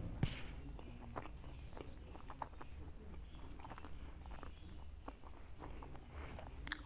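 Close-miked eating sounds: chewing and small wet mouth clicks as a person eats maize flatbread (makki ki roti) with mustard-greens curry (sarson ka saag). One sharper click comes about a quarter second in and another near the end.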